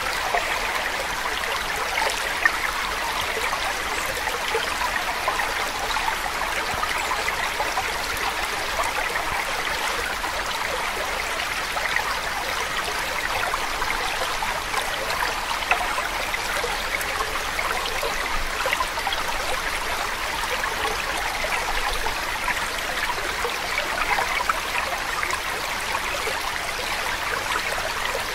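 Steady sound of running water, like a babbling stream, with a fine trickling texture and no change in level.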